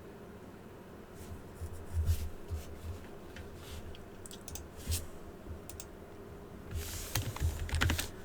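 Computer keyboard keys pressed in scattered single taps, then a quicker run of keystrokes about seven seconds in.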